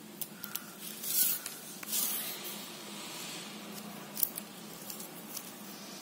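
Plastic craft wire strands rustling and rubbing against each other and the cloth as hands handle them and start a knot: a few brief scratchy swishes with small clicks, the loudest about one and two seconds in.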